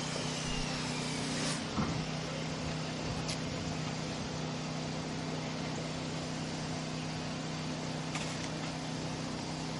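Steady engine hum and road noise of a car driving, with a faint high whistle gliding down in pitch near the start and a brief knock a little under two seconds in.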